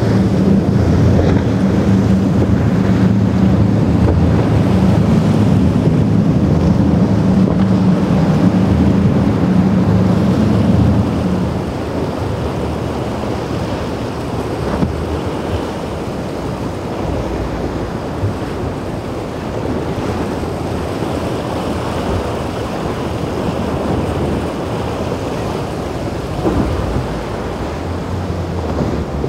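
Outboard engines of a center-console boat running at speed, a steady low drone under rushing water and wind buffeting the microphone. About eleven seconds in the engine drone fades, leaving the wash of waves and wind.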